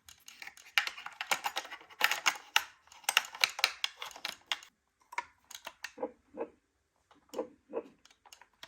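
Rapid, irregular light clicking and tapping, dense for the first few seconds and then thinning out to scattered clicks.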